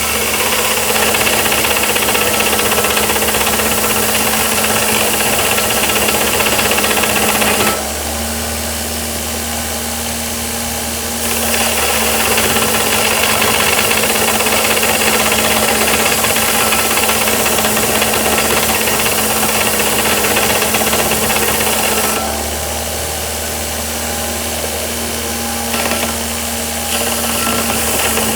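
DeWalt DW578 bench grinder driving a 2x42-inch belt grinder attachment, with steel C-channel pressed against the running belt: a steady motor hum under long stretches of loud grinding hiss. The hiss drops away twice for a few seconds, about a quarter of the way in and again near the end, leaving only the motor running free.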